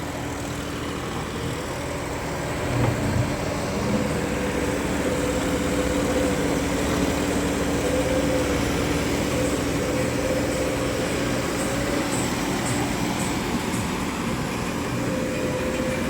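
Diesel tractor engine running steadily under load as it hauls a trolley through mud. Its note wavers slightly and picks up about three seconds in.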